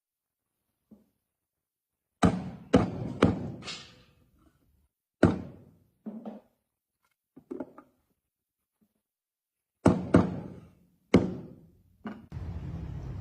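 A series of about nine sharp knocks and thunks on wood, single and in quick pairs, spaced irregularly. A steady low rumbling noise sets in near the end.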